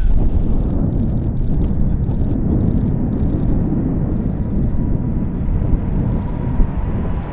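Jet engines of a Boeing 747-8 airliner running at high power, a loud steady low rumble, with a faint engine whine coming in near the end.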